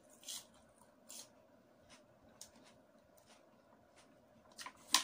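Close-up eating sounds: a lettuce-leaf wrap of rice being bitten and chewed, with scattered short wet clicks and crunches and fingers scraping in a foil tray. The sharpest click comes near the end.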